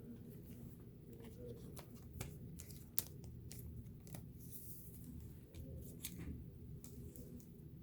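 Faint scattered clicks and rustles of trading cards and their foil packaging being handled, with one sharper click about three seconds in.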